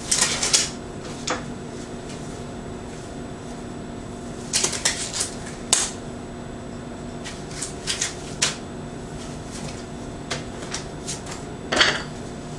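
Disposable gloves being pulled onto the hands and worked over the fingers: clusters of short rustles and crackles, with a faint steady hum underneath.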